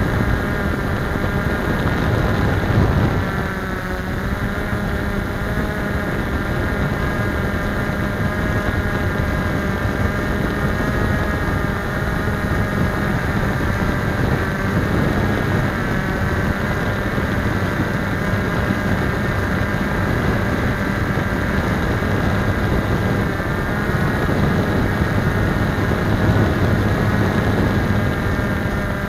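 Blade 350QX quadcopter's four brushless motors and propellers running steadily in flight, heard from its onboard camera as a stack of steady tones over a rushing hiss. The pitch and level dip briefly about three seconds in.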